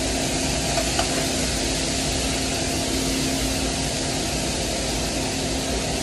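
Commercial kitchen exhaust hood fan running: a steady drone with a low hum, and a light knock about a second in.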